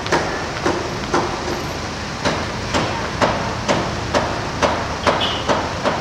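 A series of sharp clicks or knocks, roughly two a second at uneven spacing, over steady street traffic noise.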